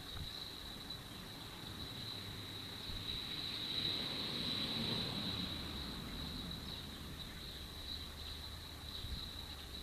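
Steady, high-pitched insect chirring held at one pitch throughout, with a low rumble that swells and fades in the middle.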